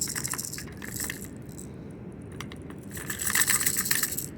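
Crinkling, clicking handling noise close to the microphone in two spells, one at the start and a louder one about three seconds in.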